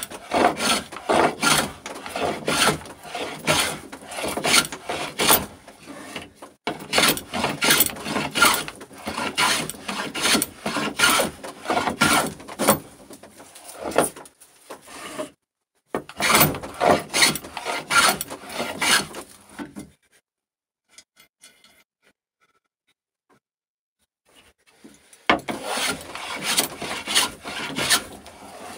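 Metal bench hand plane taking repeated passes along a birch board, about two rasping strokes a second as shavings come off. The planing stops for about five seconds roughly two-thirds of the way in, then starts again.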